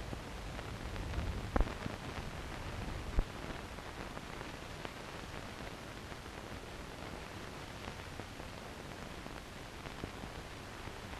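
Steady hiss and crackle of an old optical film soundtrack, with two sharp clicks about one and a half and three seconds in.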